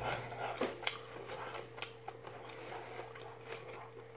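A person chewing a mouthful of boiled, spicy-seasoned shrimp close to the microphone: scattered soft wet clicks and smacks.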